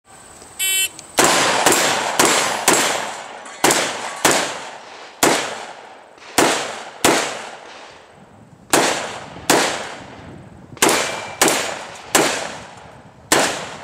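A shot timer's start beep, then about fifteen gunshots fired at an uneven pace as steel plates are engaged, each shot decaying quickly.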